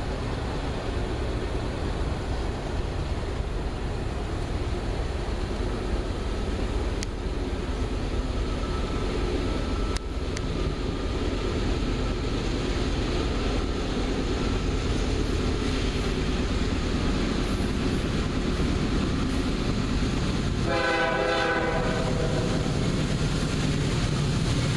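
Approaching CSX freight train led by GE AC4400CW diesel locomotives: a steady rumble of engines and wheels on the rails, growing slowly louder. About three-quarters of the way through, the locomotive horn sounds one short blast of about a second.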